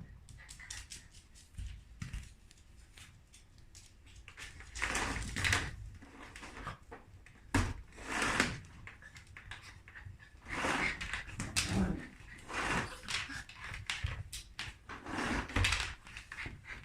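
Small pet dogs scuffling and moving about excitedly, heard as a string of irregular short noisy bursts.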